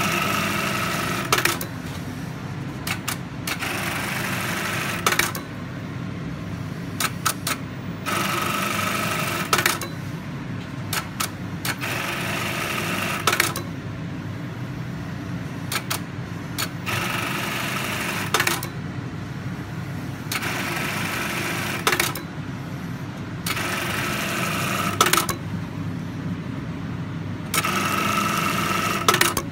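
GDB-430D computerised bar-tacking sewing machine running repeated tack cycles: about eight short bursts of fast stitching, each lasting about a second and a half, with sharp clicks as each cycle starts and ends. A steady low hum runs under the pauses between cycles.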